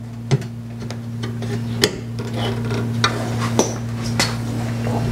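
About five separate sharp clicks and knocks of a pop-up headlight assembly's parts being pressed together by hand as a piece is fitted onto the headlight motor. They sound over a steady low hum.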